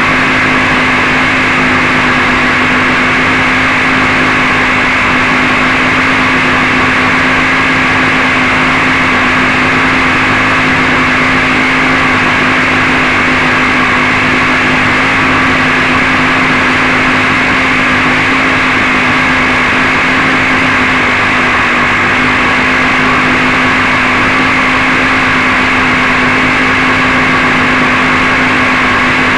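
Quadcopter's electric motors still running at a steady speed while the craft lies crashed in the grass: a loud, unchanging hum with a whine above it.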